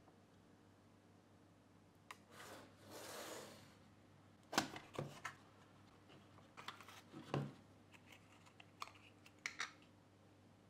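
Small cardboard tweeter box being opened and a 1-inch dome tweeter lifted out of its foam by hand. Two soft rubbing, sliding swishes come first, then scattered light clicks and taps as the tweeter is handled.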